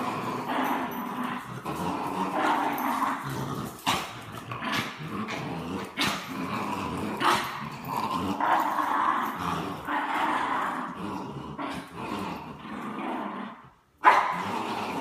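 A French bulldog and a Bichon Frise growling almost continuously in play during a tug-of-war game, with a few sharp clicks in between. The sound drops out briefly near the end, then comes back suddenly.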